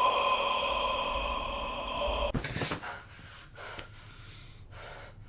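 A steady droning chord of several held high tones from a horror film's soundtrack cuts off abruptly a little over two seconds in with a sharp click. Then come a few soft, heavy breaths about a second apart.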